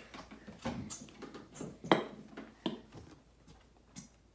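Glue bottle being squeezed out into a slime bowl: a few sharp clicks and knocks, the loudest about two seconds in.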